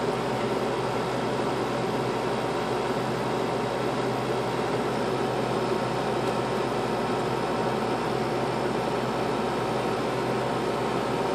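Air conditioner running: a steady, even hum and rush of air.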